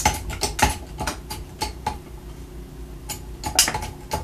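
An aluminium pop can crackling and crinkling as a 4-ton hydraulic bottle jack in a homemade press crushes it, with sharp metal clicks and clinks from the press in irregular runs. The clicks pause for about a second near the middle and pick up again near the end.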